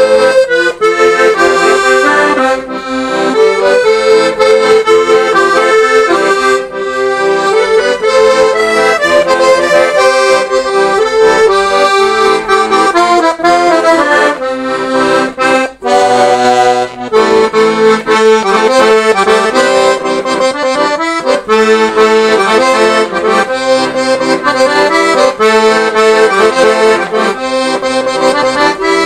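Weltmeister Amigo accordion being played: a tune with chords in a steady rhythm, with a brief break about sixteen seconds in.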